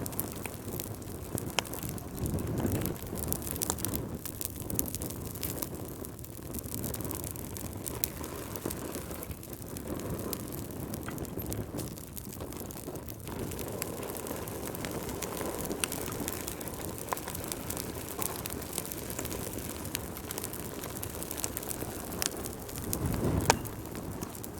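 Wood fire burning in a fireplace: a steady low rush of flames with frequent sharp crackles and pops, and one louder pop about a second before the end.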